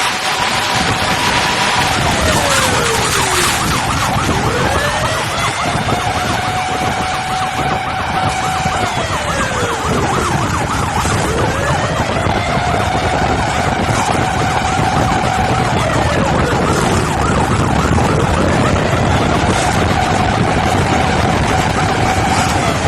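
Emergency sirens wailing: a slow wail rises, holds high for several seconds and falls off, repeating about every six seconds, over a faster warbling siren and a steady low rumble.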